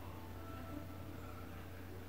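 A sleeping domestic cat's low, steady purr, which the owner half takes for snoring.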